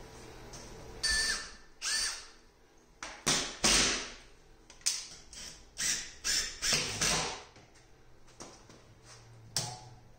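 Plastic duct fittings and a hose being handled and fitted together: a series of about a dozen short knocks, clatters and scrapes, a couple with a brief ring, over the first eight seconds, then quieter.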